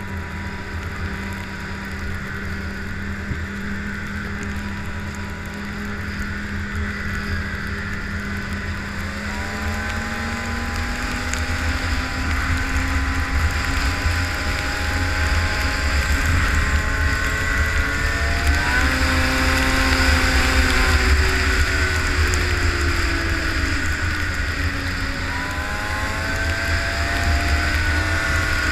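Arctic Cat ZR 500 snowmobile's two-stroke engine running under way; its pitch holds steady, then climbs about a third of the way in, and falls and rises again twice more as the throttle changes, over a steady low rumble.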